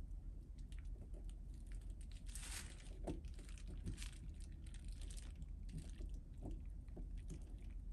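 Faint crinkling and light clicks of 3M double-sided adhesive tape being handled and pressed into place on a spoiler, with a short rustle about two and a half seconds in, over a low steady hum.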